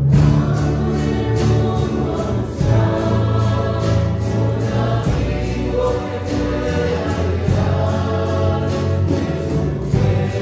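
Youth choir singing a hymn together, accompanied by acoustic guitars and other plucked string instruments strummed in a steady rhythm of about three strokes a second.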